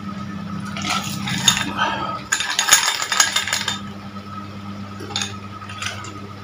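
Ice cubes clinking and rattling in a glass of drink as it is tipped and handled, in two busy bursts of small clicks about a second in and again from two and a half seconds, with a few single clinks near the end.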